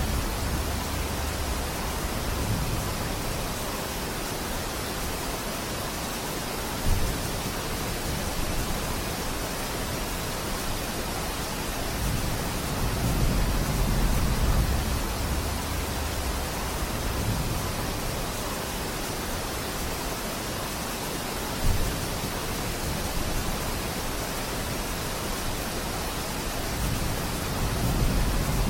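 Steady rain falling, an even hiss, with slow swells of low rumble now and then. Two brief sharp knocks stand out, about 7 seconds and 22 seconds in.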